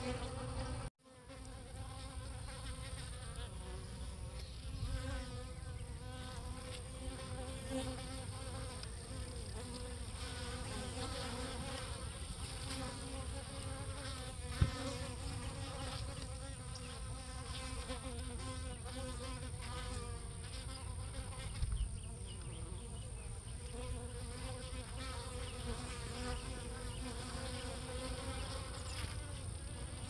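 Honeybees buzzing at a hive entrance: a steady hum of many bees flying in and out. The sound drops out briefly about a second in, and there is one sharp click about halfway through.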